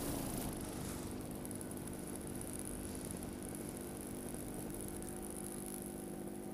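Paramotor engine idling with a quiet, steady hum after being throttled back for landing.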